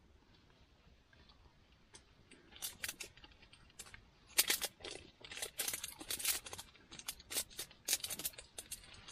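Plastic wrapper of a 5 Star chocolate bar crinkling and crackling in quick, sharp bursts as it is handled and peeled back, starting about two seconds in and getting busier from the middle on.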